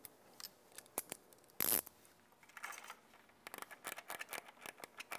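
13 mm ratchet wrench tightening the nut on a battery cable post: scattered light metal clicks and one short scrape, then a fast run of ratchet clicks, about five a second, over the second half.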